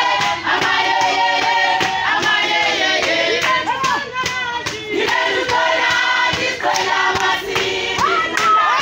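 A crowd of women singing a protest song together in chorus, with clapping.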